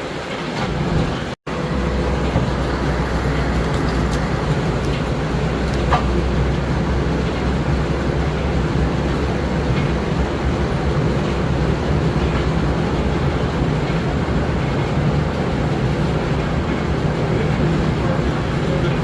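Steam-engine-powered sawmill running, a steady, continuous mechanical rumble. The sound cuts out for an instant about a second and a half in, and the low rumble is heavier afterwards.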